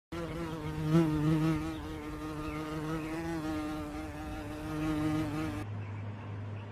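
A fly buzzing steadily, its pitch wavering slightly. It stops about five and a half seconds in, and a low steady hum follows.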